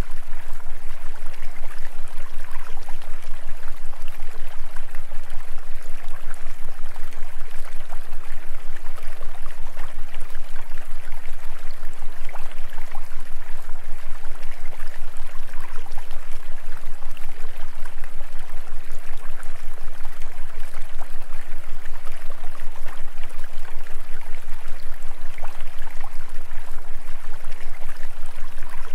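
A steady rushing noise like running water over a constant low hum, its loudness pulsing rapidly and evenly several times a second.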